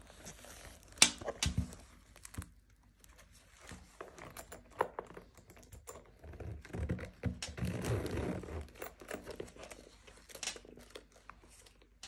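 Hands handling a leather bag and its paper and plastic packaging: rustling and crinkling, with a few sharp clicks, the loudest about a second in, and a longer spell of rustling in the middle.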